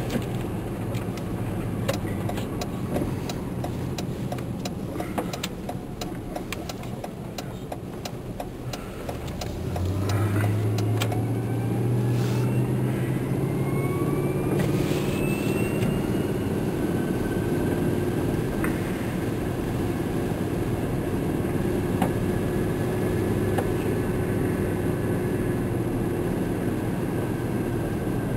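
Vehicle engine heard from inside the cab, running low with scattered clicks, then getting louder about ten seconds in as it pulls away, with a whine rising in pitch for several seconds before it settles into steady running.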